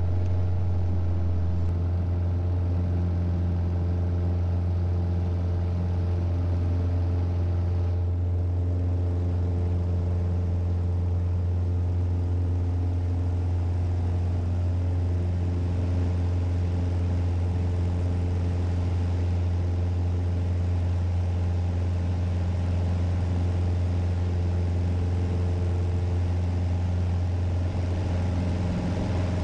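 Piper Arrow's engine and constant-speed propeller at full takeoff power, mixture full rich, a steady deep drone heard inside the cockpit through the takeoff roll and climb-out.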